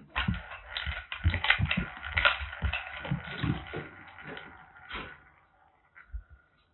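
Wooden ball rattling and rolling round a bamboo ball-track cat toy as kittens bat at it: a fast, loud clatter of knocks that dies away about five seconds in, with a couple of faint knocks near the end.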